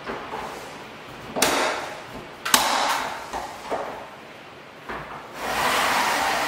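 Cordless faux-wood window blind being fitted and lowered: a plastic knock and then a sharp click as the headrail is snapped into its mounting brackets, then a longer rustling clatter of the slats near the end as the blind comes down.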